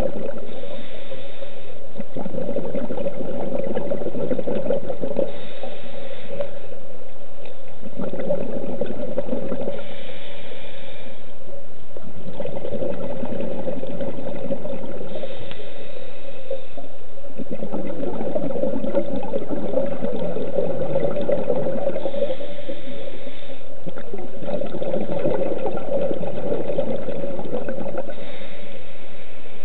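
Scuba regulator breathing heard underwater: a short hiss on each inhale, then a longer bubbling rush as the breath is let out, repeating about every five to six seconds.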